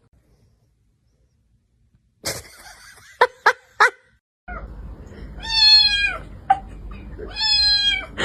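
A cat meowing twice, two long drawn-out meows a little over a second apart in the second half. Earlier come three sharp taps in quick succession.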